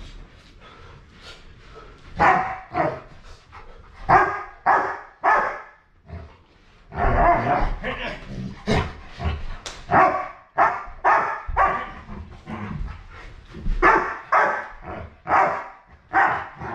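Large dog barking in repeated short bursts while play-wrestling, with a quieter stretch in the first couple of seconds.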